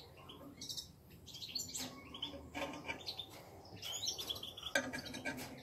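Small songbirds chirping and twittering, with many short high calls overlapping one another throughout.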